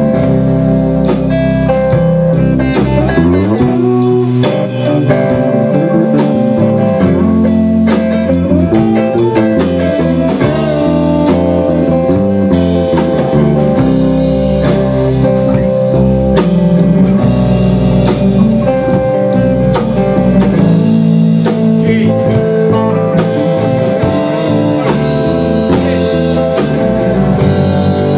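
A live rock band playing an instrumental passage: electric guitars, bass guitar and drum kit, with no singing.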